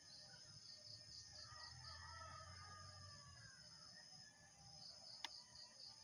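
Faint insects chirring in a pulsing rhythm of about four pulses a second, with soft bird calls about two seconds in and a single sharp click near the end.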